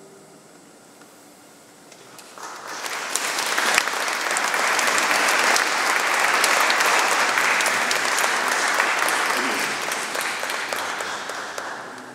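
Audience applauding at the end of a choir piece: after about two seconds of quiet the clapping starts, quickly swells, holds, then thins out near the end.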